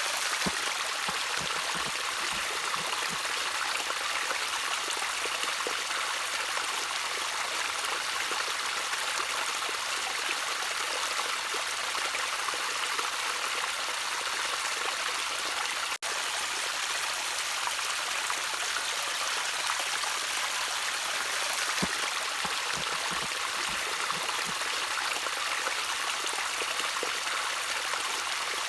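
Shallow stream water trickling and burbling steadily over stones, with small plinks and gurgles.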